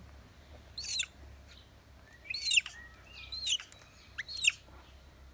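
Young macaque giving about four short, shrill screams roughly a second apart, each rising and then falling in pitch: protest calls in a tantrum over food given to another monkey.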